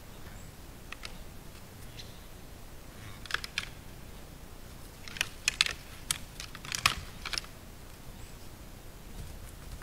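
Two deer stags sparring, their antlers clacking and rattling together in short bursts of sharp clicks, busiest from about three to seven and a half seconds in, over a faint steady hiss.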